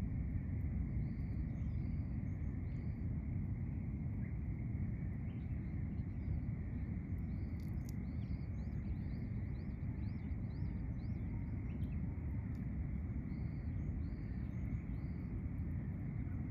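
Outdoor ambience: a steady low rumble of background noise with small birds chirping faintly, including a quick run of about a dozen short chirps midway.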